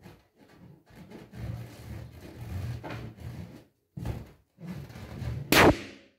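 Yellow latex balloon squeezed under a stiletto heel, the rubber rubbing and straining, then bursting with one loud pop about five and a half seconds in.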